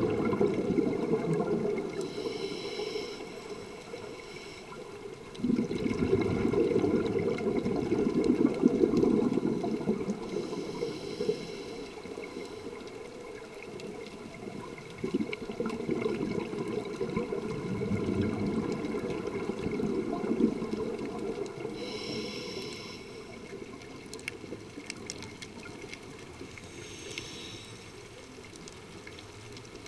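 Scuba diver breathing through a regulator underwater: a short hiss with each inhale, about four times, and long bubbling rumbles as the exhaled air streams out.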